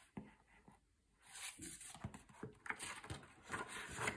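Paper pages of a picture book being handled and turned by hand. The rustling and small crinkles start about a second in.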